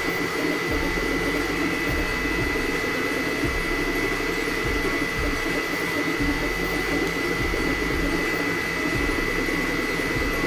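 Elegoo FDM 3D printer running mid-print: a steady whir with a constant high whine from its cooling fans, over a fluttering, busy hum from the stepper motors driving the print head.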